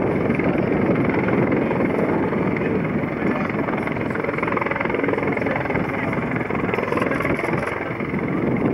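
Bell 412 helicopter hovering low, its rotor and turbine engines running steadily.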